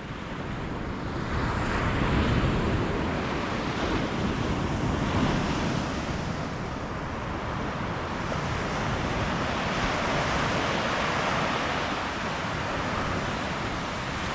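Ocean surf breaking and washing up a beach, with wind on the microphone; the wash swells up about a second in and stays strong, rising and falling.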